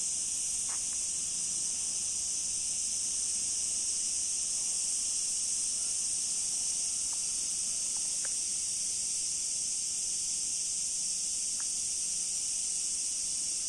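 Insects calling in a steady, unbroken high-pitched drone, with no pause or change in level.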